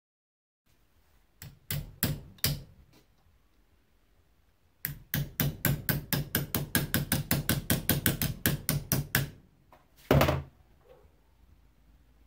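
Hammer striking a curved sheet-steel section clamped in a bench vise to bend it into shape: a few separate blows, then a quick, even run of about five strikes a second for several seconds, and one louder, heavier knock near the end.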